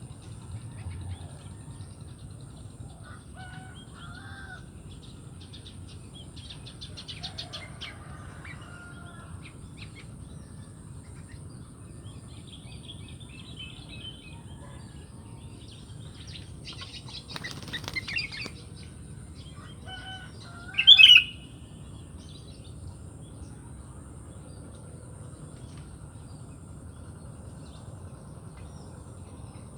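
Sooty-headed bulbuls (kutilang) calling in short, scattered phrases and chirps. There is a brief rustling burst a little past halfway, and a louder sharp call about 21 seconds in.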